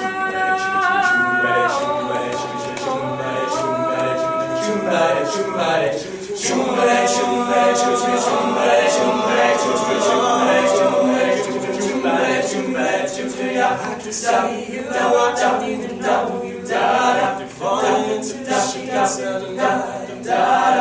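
All-male a cappella group singing in close harmony. They hold sustained chords for the first few seconds, then move into a more rhythmic passage with a steady beat of short percussive hits.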